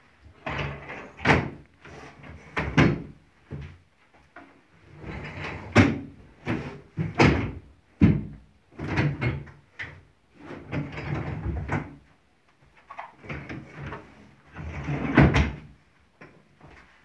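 Convertible sofa-bed seat sections being pulled out and pushed back in: sliding, rubbing noises and a series of sharp knocks and thumps as the sections hit their stops.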